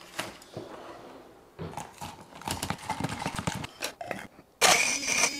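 Ice cubes knocking and clattering inside the plastic jar of a Blendjet portable blender as it is handled, its blade stuck in the frozen ice. A sudden loud rush of noise comes near the end.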